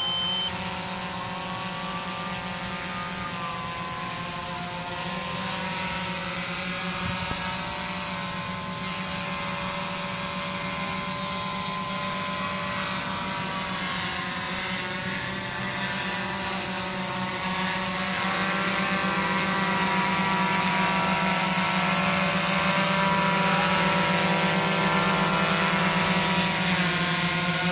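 QAV500 quadcopter's electric motors and propellers humming steadily as it hovers, the pitch wavering slowly as the motors adjust, and growing louder over the last third as the drone comes closer. A short electronic beep right at the start.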